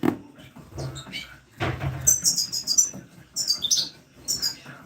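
Small birds chirping in quick, high-pitched calls from about two seconds in, after a couple of low thumps and some rustling.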